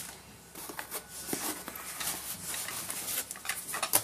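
Packaging and lock parts being handled: light rustling with scattered small knocks and clicks as pieces are taken out of the box.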